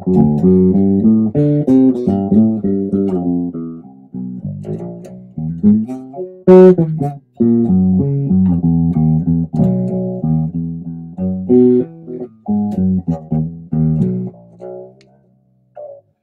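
Traveler TB-4P travel electric bass played through an amp with its tone knob turned all the way off: a run of plucked notes with very little treble, and one sharper, louder note about six and a half seconds in. The playing dies away near the end.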